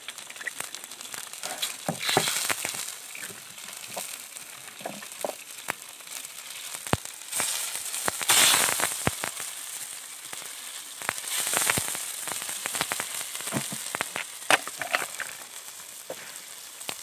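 Wood campfire crackling and popping under a wok of fish broth simmering, with a few louder swells of hiss.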